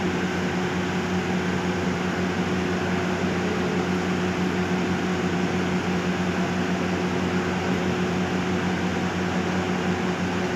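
Steady machine hum with a low droning tone under an even hiss, unchanging throughout.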